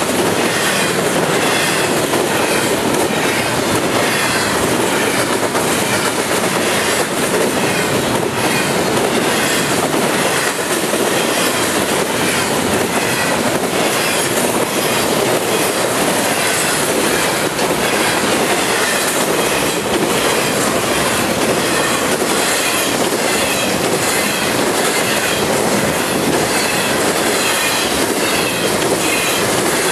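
Norfolk Southern intermodal freight train's container and trailer flatcars rolling past close by: a loud, steady rush of wheels on rail that does not let up.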